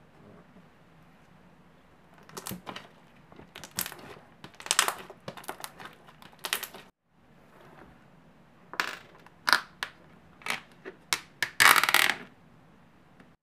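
Thick glossy slime pressed and squeezed by hand, giving clusters of sticky pops and clicks. After a short pause, fingers work into a floam slime packed with foam beads, giving sharper separate pops and then a dense crunchy crackle near the end.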